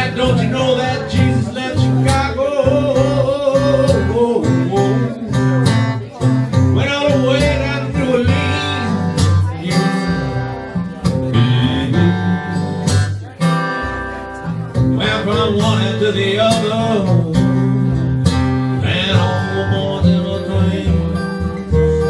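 Acoustic guitars playing a blues song live, with a lead line that bends and wavers in pitch over the chords.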